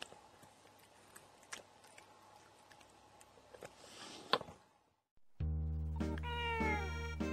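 Faint rustling and clicks as a cat rubs its head and fur against the camera, with a sharp knock about four seconds in. After a short silence, accordion music starts and a cat meows once over it, falling in pitch.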